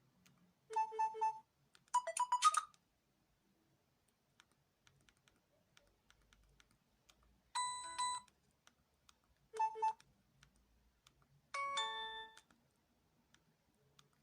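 LG-S310 keypad mobile phone's speaker playing five short bursts of electronic ringtone melody, each about half a second long, separated by silent gaps, with faint clicks between them.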